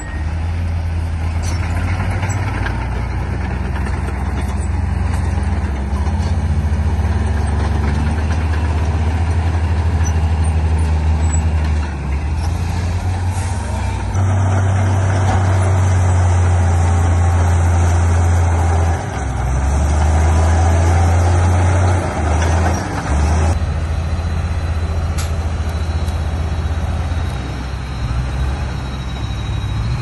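Heavy diesel engines of earthmoving machinery, a bulldozer and dump trucks, running hard with a deep, steady drone that dips and swells several times. A harsher stretch of noise rides over it through the middle.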